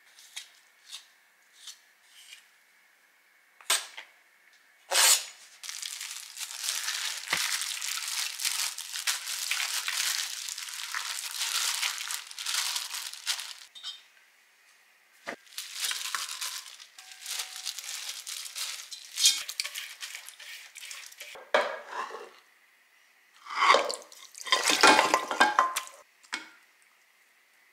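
Kitchen handling sounds: a few light clicks of a wooden spoon against a glass bowl, then a long stretch of rustling and scraping as seasoning is worked into blanched greens. Later, clatter of a ceramic-coated pot and dishes, loudest near the end as cooked pork bones go into the pot.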